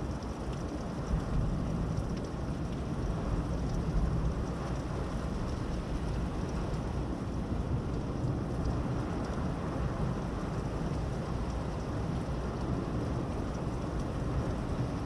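Heavy thunderstorm rain falling steadily, with a low rumble of thunder underneath.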